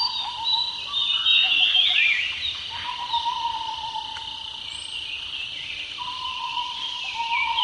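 Insects trilling steadily with birds singing over them: bursts of quick warbling song, and long level whistled notes that come back several times.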